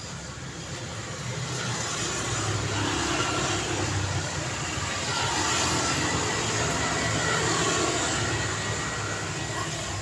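Road traffic: vehicles driving past, with engine hum and tyre noise swelling over the middle and easing near the end.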